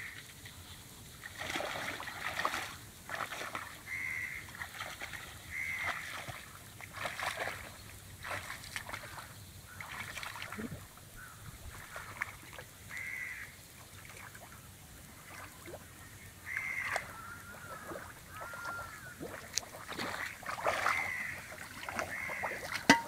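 Water splashing and sloshing as the bamboo-framed hand net is worked and waded through shallow, weedy lake water, in irregular strokes. Birds call repeatedly throughout in short, high calls.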